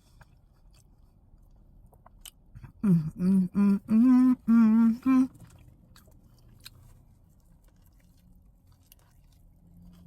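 A woman hums a run of short 'mmm' notes with her mouth full, about two seconds long, in the middle of chewing a burger, the sound of someone enjoying the food. Faint chewing clicks come before and after.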